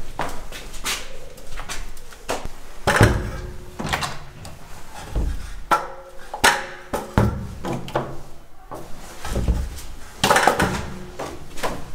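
Aluminium step ladder knocking and clanking irregularly against a door and its frame as it is carried through a doorway, with door thuds, over background music.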